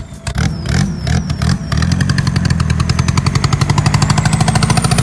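Volkswagen TDI turbodiesel engine pulling hard as the car launches from a standstill, with a rising turbo whistle over the fast engine pulse. The engine note comes in loud and steady about two seconds in, after a few knocks and some clatter.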